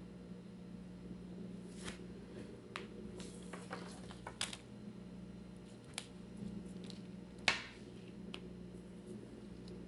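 Handling noise from a smartphone held and moved in the hand: scattered light clicks and rustles, the loudest a sharp knock about three quarters of the way through, over a steady low hum.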